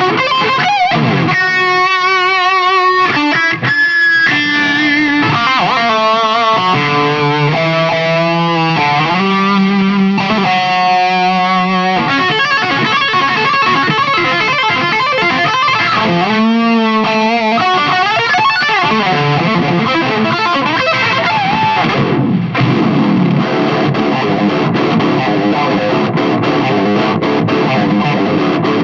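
Fernandes Revolver electric guitar played through a distorted amp: a lead line of held notes with wavering vibrato and stepped single-note runs, turning to denser ringing chords in the second half.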